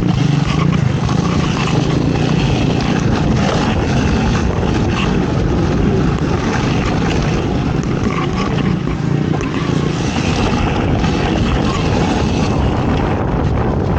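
ATV engine running steadily throughout, loud and unbroken, with a rough noisy texture.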